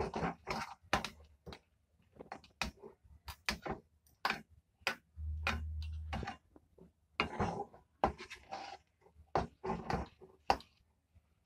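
Metal spatula scraping and knocking against a kadai as a thick ground chana dal paste is stirred and pushed around to dry out its water: an irregular run of clicks and scrapes, several a second. A brief low hum comes in about five seconds in.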